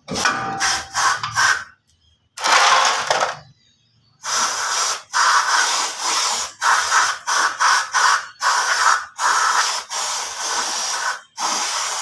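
Aerosol cleaner hissing from a can's straw nozzle as it is sprayed onto a disc-brake caliper to clean it. It comes in a long string of short bursts, each a second or less, with brief pauses.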